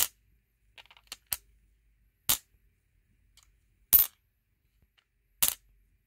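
Pieces of regular moldavite dropped one after another onto a hard surface, each landing as a short, dry tap that dies away at once with no ringing; about five taps, the last one a quick multiple tap as the piece bounces. The lack of a ring is what marks them as ordinary moldavite rather than an angel chime.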